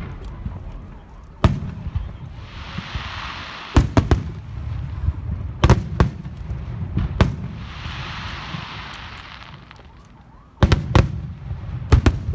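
Aerial fireworks bursting: about a dozen sharp bangs, several in quick doubles and triples, with stretches of hiss between them and a low rumble underneath.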